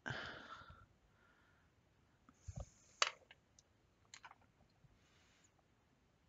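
Light clicks and taps of small clay tools being handled and set down on a hard work table, with a short rustle at the start. The sharpest click comes about three seconds in, and a few smaller ones follow about a second later.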